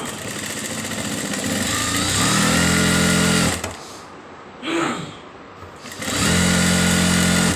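Sewing machine running in two bursts: it gathers speed over the first two seconds, stops about three and a half seconds in, and runs again from about six seconds in. A short separate sound comes between the two runs.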